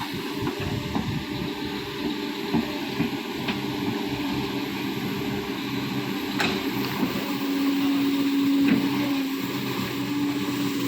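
Excavator's diesel engine running steadily, louder for a stretch about three-quarters of the way through, with one sharp knock about six seconds in.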